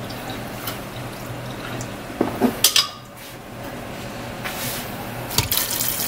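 Water being poured from a pitcher into an Instant Pot's stainless-steel inner pot over soaked beans, building up near the end. Before it come a few light knocks.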